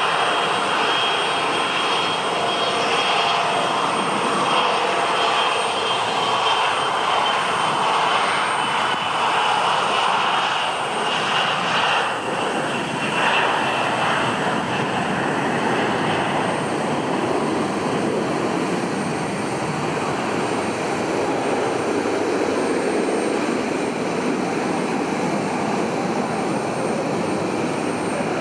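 Embraer 175 jet airliner's twin turbofans at takeoff power through the takeoff roll and climb-out. A steady jet noise carries a high whine that slowly drops in pitch as the plane goes by. About halfway through the whine fades and the sound turns into a lower rumble as the plane climbs away.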